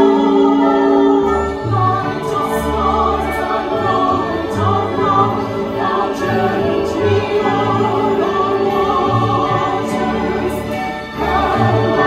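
Two women singing a duet in harmony, with sustained notes, over an accompaniment of low bass notes.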